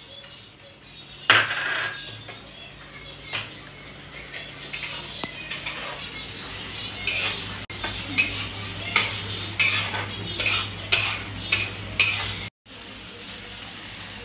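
Steel spatula scraping and clanking against an iron kadai as chopped tomatoes and onion masala are stirred, over a steady sizzle of frying. One loud knock about a second in; from about halfway the strokes come quickly, about two a second.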